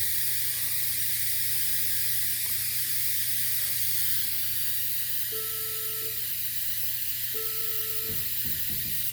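X-ray machine running: a loud, steady high hiss over a low electrical hum that cuts off suddenly near the end. Two short beeps sound in the second half.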